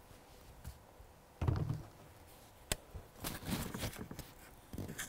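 Handling sounds of a Diana AR8 break-barrel air rifle being closed and settled onto a bench shooting rest. There is a dull thump about a second and a half in, a single sharp click a little later, then small knocks and the rustle of clothing as the shooter gets into position.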